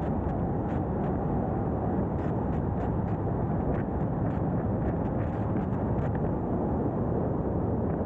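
Steady rush of wind and road noise from a 2022 Subaru WRX driving at road speed, picked up by a camera on a pole mount on the car, with faint light ticks now and then.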